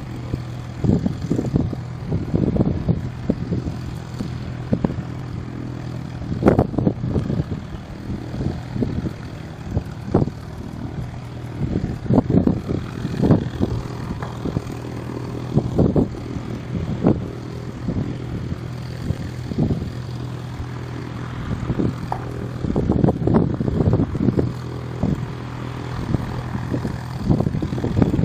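Single-engine light aircraft taxiing on grass, its propeller engine running at a steady low drone. Irregular gusts of wind buffet the microphone.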